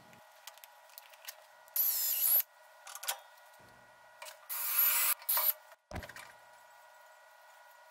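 Milwaukee cordless drill running in two short bursts, one about two seconds in and a longer one near five seconds, drilling new holes into the bandsaw's casting. Small clicks and taps come between the bursts.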